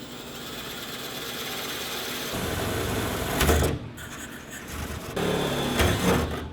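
Electric drill boring through a car hood for hood pins: a steady whir that builds, with two louder stretches, about three and a half seconds in and again near the end, as the bit bites into the panel.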